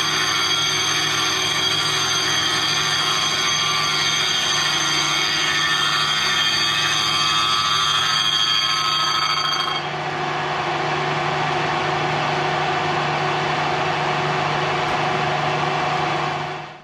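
Milling machine running and cutting a steel brake disc, a steady mechanical whine made of several held tones. About ten seconds in the higher tones drop away and the sound takes on a lower, rougher character. It stops abruptly near the end.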